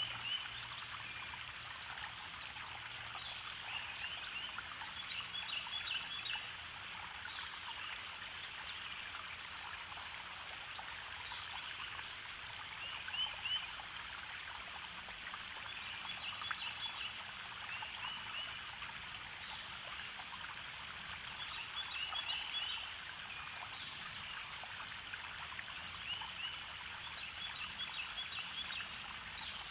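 Steady sound of running water, like a small stream, with short bird chirps coming back every few seconds.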